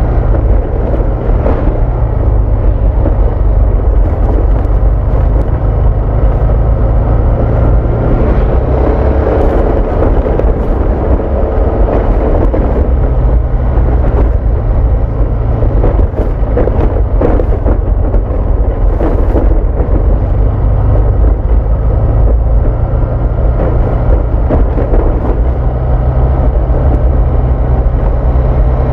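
Honda Vario 160 single-cylinder scooter riding at a steady speed, its engine hum mixed with a loud, steady rumble of wind on the camera microphone, with a few brief knocks from the rough road surface.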